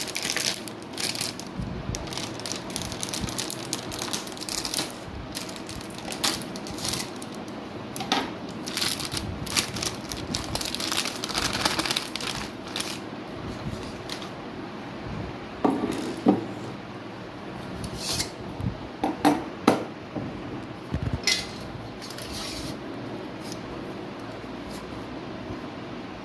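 Irregular metallic clicks, knocks and clatter of desktop computer parts being handled during disassembly, with a few sharper knocks a little past the middle.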